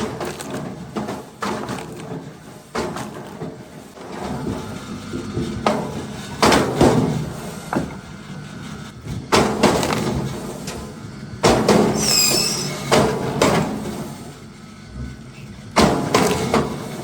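Log splitter at work: a series of sharp knocks and cracks as logs are split and pieces drop, over machine running noise, with a brief high squeal about two-thirds of the way through.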